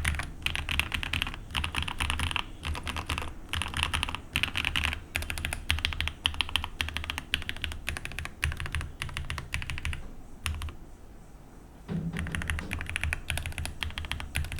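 Rapid typing on a mechanical keyboard with Gateron linear switches (Red and Milky Yellow), set on a desk mat over a wooden desk. The keystrokes run in quick runs, pause for about a second a little past the middle, then resume.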